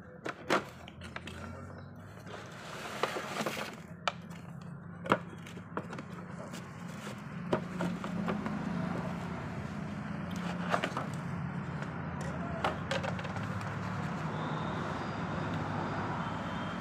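Packaging being handled: a cardboard box opened and a plastic tray and toy cat taken out, making scattered clicks, knocks and rustles. A steady low hum sits underneath, rising in the second half.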